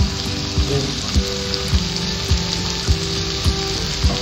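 Sliced onions and bell peppers sizzling steadily in hot oil in a frying pan as chopped crispy fried pork is tipped in.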